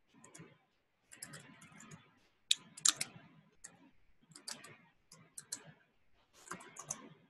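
Computer keyboard typing in irregular runs of keystrokes, as a username and password are entered to log in.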